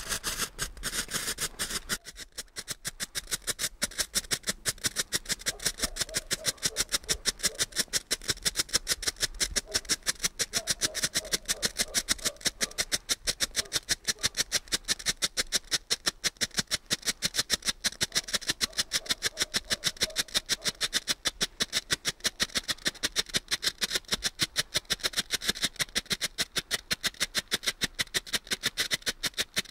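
Silver strobe torch (firework strobe pot) burning: after a short hiss at first, its strobe composition goes off in sharp, even pops, about three or four a second, steady throughout.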